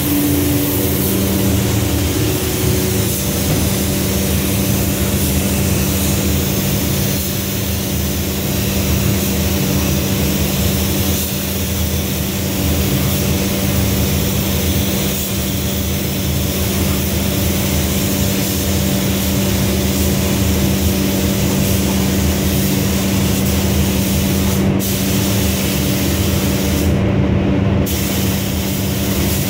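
Compressed-air hiss of a gravity-feed spray gun spraying clear coat, over a steady machine hum. The hiss stops briefly twice near the end.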